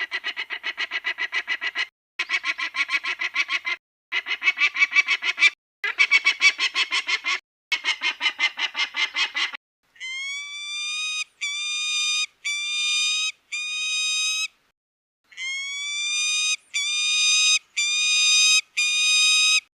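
Made-up peregrine falcon call sound effects. First come five bouts of rapid chattering, about eight pulses a second, each bout lasting about two seconds. Then come two runs of four longer, slightly rising calls.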